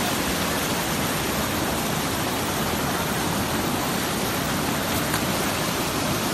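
Fast-flowing mountain stream rushing steadily over rocks and small cascades.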